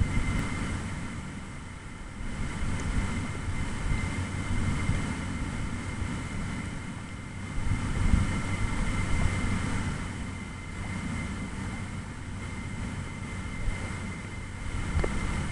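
Wind buffeting the microphone, a rising and falling low rumble, over a faint steady high tone.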